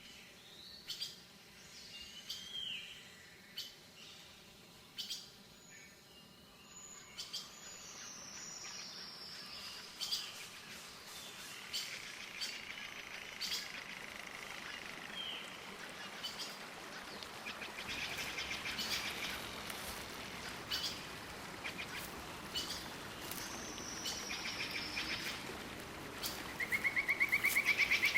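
Birds chirping and calling, with scattered sharp clicks. A fast, rattling trill near the end is the loudest sound.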